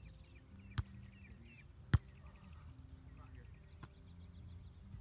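Volleyball being struck with hands and forearms during a rally: a softer hit about a second in, a sharp loud smack about two seconds in, and a faint tap near the end.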